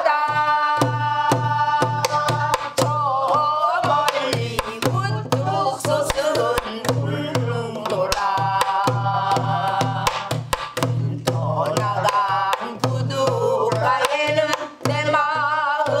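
Singing of a Korean new folk song (sinminyo) accompanied by a buk barrel drum struck with a stick in a steady, repeating rhythm.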